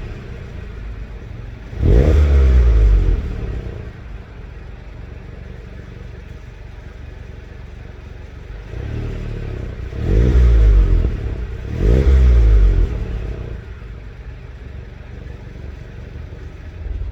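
Stock 2020 Volkswagen GTI's turbocharged 2.0-litre four-cylinder idling and blipped three times, about two seconds in, around ten seconds (after a smaller rise) and about twelve seconds in, each rev falling quickly back to a steady idle.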